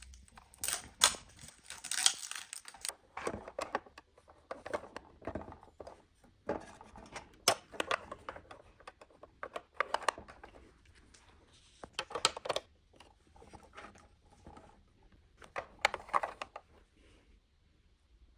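Toy packaging being handled and opened: irregular plastic crinkling, scratching and sharp clicks, coming in clusters every couple of seconds.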